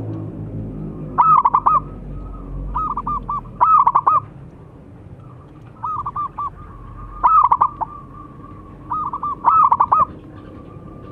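Zebra dove singing its cooing song: short phrases of rapid, repeated coo notes, about every one and a half seconds.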